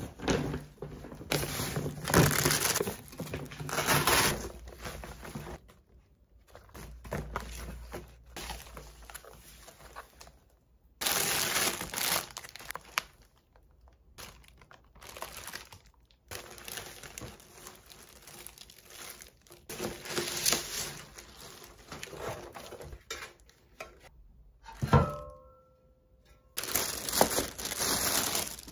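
Plastic packaging being crinkled, rustled and torn in irregular bursts: a plastic mailer bag, bubble wrap and plastic-wrapped food packs being handled and unwrapped. About 25 seconds in there is a single sharp knock, followed by a short ring.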